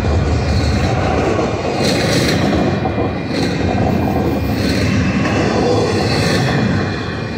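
Double-stack intermodal well cars of a freight train rolling past close by: a steady, loud rumble of steel wheels on rail.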